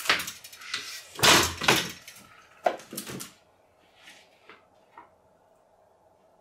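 Knocks and clatters of a homemade household chain-reaction contraption, with a swinging wooden pole and objects striking and falling. There are three loud clattering bursts in the first three and a half seconds, then a few faint taps about four to five seconds in.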